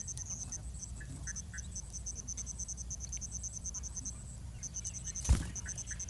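An insect chirping steadily in rapid high-pitched pulses, about ten a second, over a low rumble, with a few short faint bird chirps. A single sharp thump about five seconds in is the loudest sound.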